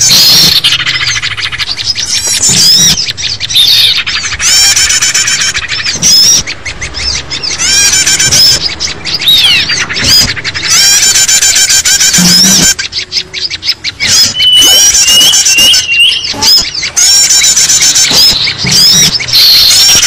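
Bird-lure recording of many small songbirds calling at once: a loud, noisy tangle of rapid trills, chirps and short whistled notes, layered and repeating, made to draw wild small birds in close.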